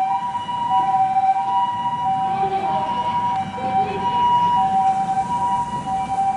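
Japanese ambulance's two-tone electronic siren on an emergency run, switching back and forth between a high and a low tone about every two-thirds of a second, over the rumble of road traffic.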